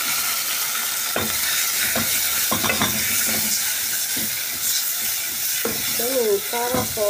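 Sliced tomatoes and onions sizzling in hot oil in a metal pot, with a steady hiss, while a spoon stirs and knocks against the pot at irregular intervals.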